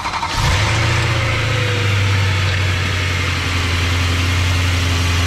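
BMW E90 M3's 4.0-litre S65 V8 just after starting, settling about half a second in into a steady idle. It runs on freshly rebuilt throttle actuators, and the idle sounds good.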